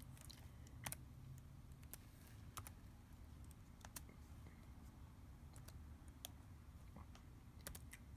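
Slow, faint typing on a computer keyboard: a dozen or so single keystrokes spaced irregularly.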